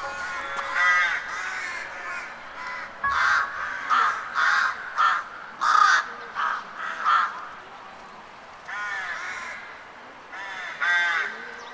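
Crow cawing: one caw near the start, then a quick series of short, harsh caws, then a few longer caws spaced out near the end.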